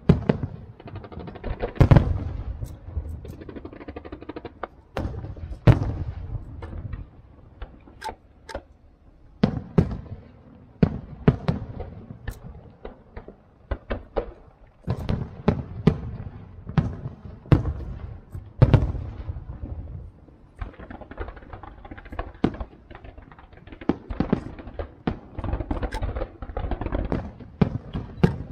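Aerial firework shells bursting one after another in an irregular barrage of booms and sharper cracks, with the biggest bangs about 2, 6 and 19 seconds in.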